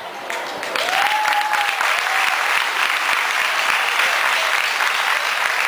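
Audience applauding, swelling about a second in and holding steady.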